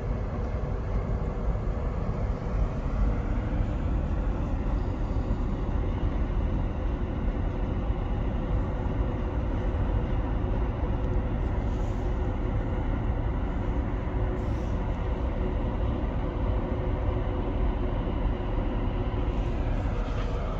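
Corsica Ferries passenger ferry's engines heard across the harbour water: a steady low rumble with a constant hum.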